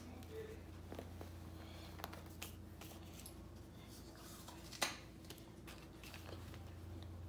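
Faint rustling and crinkling of a plastic bag as a plush toy is worked out of it, with scattered small clicks and one sharp click about five seconds in, over a low steady hum.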